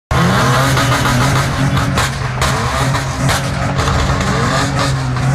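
Jammed street traffic at a crowded celebration: car engines running and revving, with a steady low drone and voices mixed in.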